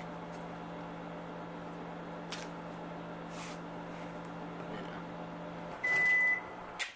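Over-the-range microwave oven running with a steady hum. Near the end the hum stops and the microwave gives one high beep, signalling the end of the heating cycle.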